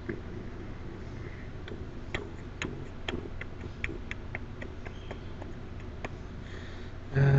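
A string of light, irregular clicks, about two or three a second, over a low steady hum, with a man's voice sounding briefly near the end.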